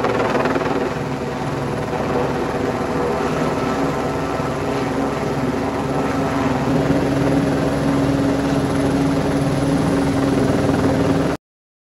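Helicopter hovering overhead with a load slung on its long line, steady rotor and engine noise; it cuts off abruptly near the end.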